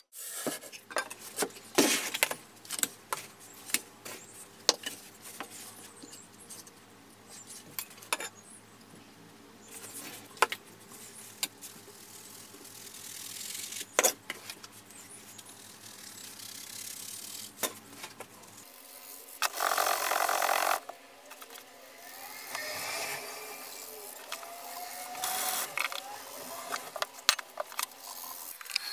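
Casting sand sifted through a plastic colander into a wooden mold box: a hiss of falling grains with the colander rattling and scraping, and a louder rush of sand for about a second near the middle. Scattered clicks and knocks fill the first part.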